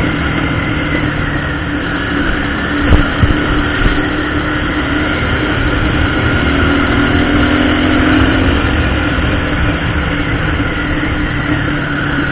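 Motorcycle engine running steadily at road speed under wind rush on the camera microphone, with a short thump about three seconds in.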